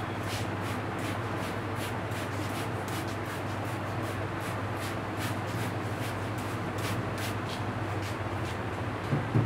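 Hands rubbing and massaging a head of hair, soft rhythmic strokes about two a second over a steady low hum, with two louder knocks near the end.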